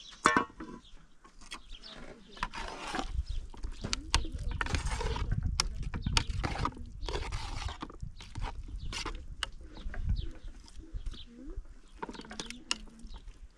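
Metal ladle stirring a pot of stew on a fire, scraping and clinking against the pot in short bursts, with a low rumble underneath.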